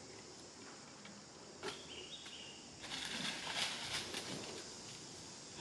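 Steady high insect buzzing, with a short chirp about two seconds in and a louder stretch of rustling from about three to four seconds in.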